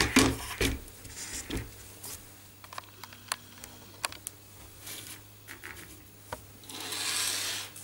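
Handling noise from a small plastic-and-acrylic pen plotter: a few knocks as it is turned back over and set down on the table, then scattered light clicks and taps of the plastic parts and steel rails being handled, and a short scraping rustle near the end.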